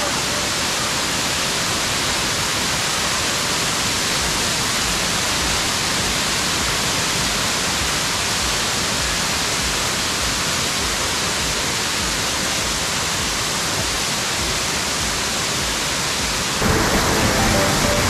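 Steady rushing hiss of a cascading waterfall. A little before the end it turns louder and heavier.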